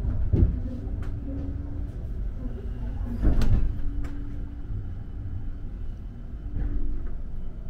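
Low rumble inside a night train's sleeping car as the train rolls slowly, with a faint steady hum and two loud knocks, about half a second and about three and a half seconds in.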